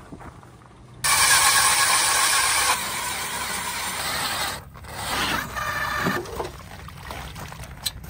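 Powered ice auger drilling a fishing hole through lake ice. The motor starts suddenly about a second in and runs steadily as the blades cut. It breaks off briefly, runs again, and grows quieter near the end as the hole is finished.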